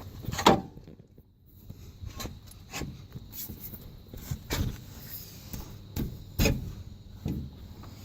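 Scattered metallic knocks and clunks, about seven in all, from tools and suspension parts being handled while an upper control arm is fitted to a car's front suspension; the loudest comes about half a second in.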